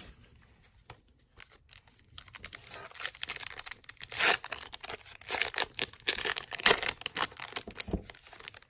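A pack of 2019 Series 1 baseball cards being torn open, its wrapper ripping and crinkling in a dense run of crackles that starts about a second in.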